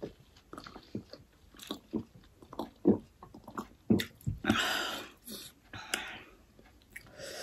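Close mouth sounds of eating pork momo dumplings: wet chewing and lip smacks in quick, irregular clicks, with two short hissy breaths or slurps about four and a half and six seconds in.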